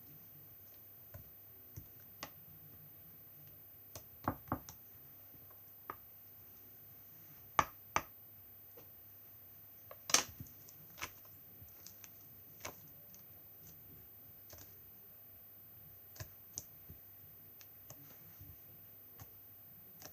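Handmade clear-glue glossy slime being pressed and played with, giving irregular sharp clicks and pops, some in quick pairs, the loudest about halfway through.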